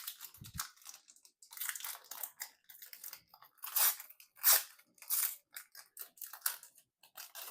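Foil booster-pack wrapper crinkling and crackling in the hands as the next pack of cards is opened, a run of irregular crunchy rustles.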